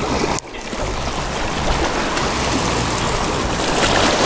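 Small ocean waves washing and swirling over lava rock at the shoreline, a steady rushing wash with a brief lull about half a second in.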